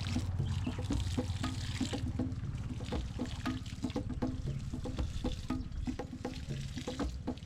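Water poured from a container into planting holes in dry soil, trickling and splashing.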